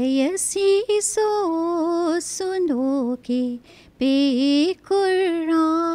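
A woman singing an Urdu devotional song unaccompanied, in slow phrases with long held notes and short breaths between them.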